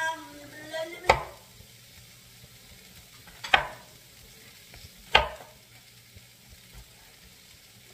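Paring knife slicing fresh mushrooms over a wooden cutting board: three sharp knocks about two seconds apart, over a faint steady hiss.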